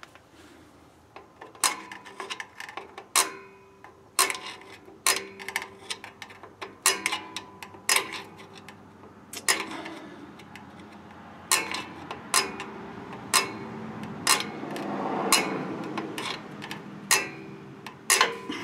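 Star-wheel adjuster of a 1967 Mustang rear drum brake being turned notch by notch with a thin tool: a series of sharp metallic clicks at irregular intervals, some ringing briefly, with a stretch of scraping about three-quarters of the way in. The shoes are being adjusted outward because they are still too loose for the drum.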